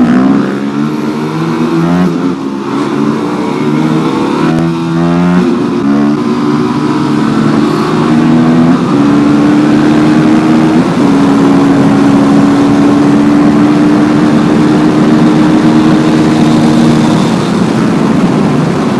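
Motorcycle engine pulling through several gears, its pitch climbing and dropping back with each shift, then running at a steady speed from about nine seconds in, easing slightly near the end.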